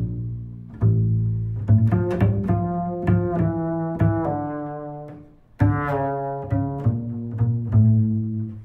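Background music on low string instruments: a series of separate pitched notes, each struck sharply and fading away, with a brief drop in level just past the middle.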